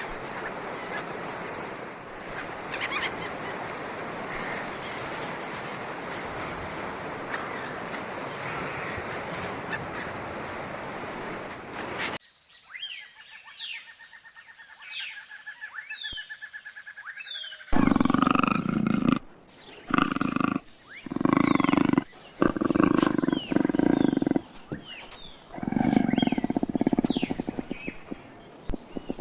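A steady rush of noise with faint bird chirps. About twelve seconds in it cuts to birds chirping over a pulsing trill, and then a large animal calls loudly again and again, each call about a second long.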